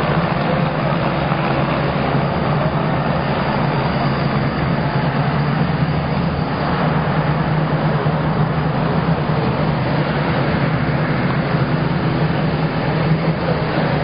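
Boeing 787 Dreamliner's Rolls-Royce Trent 1000 jet engines running steadily as the airliner rolls out down the runway after landing: an even, unbroken rush with a low hum beneath.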